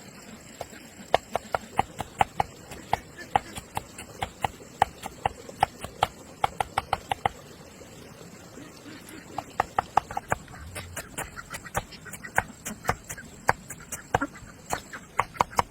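Repeated sharp knocks, about three to four a second, in two runs with a short pause between them.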